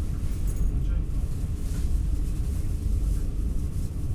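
Steady low rumble of an NS ICNG intercity train running along the track, heard from inside the passenger car, with faint light rattles.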